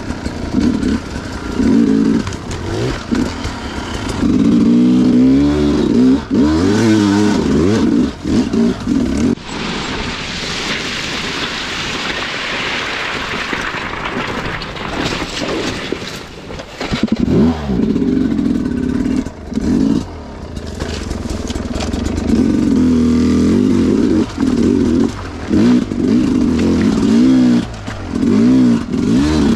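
Sherco 300 two-stroke dirt bike engine revving up and down in repeated bursts of throttle, dropping back between them. For about six seconds in the middle the engine eases off under a steady rushing hiss.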